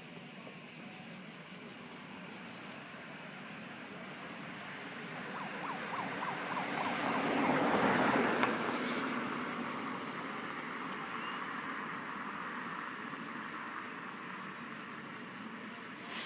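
Crickets chirring in a steady high-pitched night chorus. About a third of the way in, a broad rushing noise swells up, peaks near the middle and fades away over several seconds.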